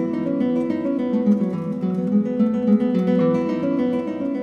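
Background music: acoustic guitar played in a quick plucked and strummed pattern.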